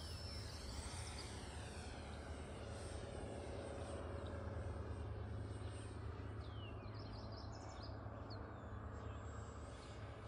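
Distant whine of an E-flite Habu's electric ducted fan as the RC jet flies past and away, its high pitch bending up and down as it passes, over a steady low rumble of wind on the microphone.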